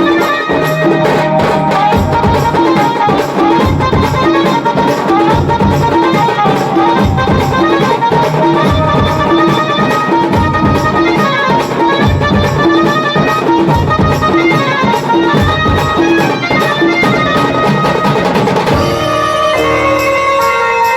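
Tasa band playing loudly: a keyboard melody over a steady, even drum beat. The music changes abruptly about 19 seconds in.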